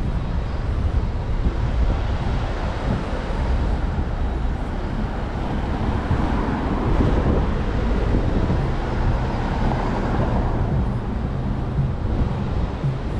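City street traffic noise with a steady low rumble; about halfway through, a passing vehicle swells louder and then fades.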